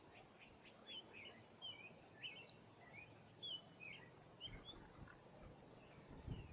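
Small birds chirping faintly, with short twittering calls scattered throughout and a few soft low thumps in the second half.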